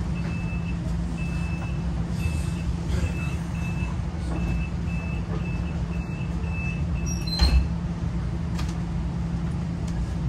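SNCF Avanto tram-train's door warning: a high beep repeating about twice a second for about seven seconds, then stopping, with a loud thud about half a second later as the doors shut. Under it runs the steady low hum of the stationary tram-train.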